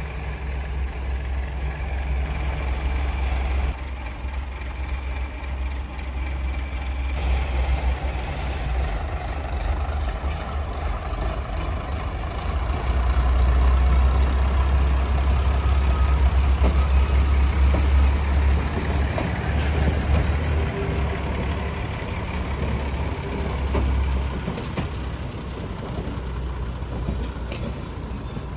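Heritage first-generation diesel multiple unit running as it moves past, its underfloor diesel engines giving a steady low rumble that is loudest around the middle, with a couple of brief high squeals.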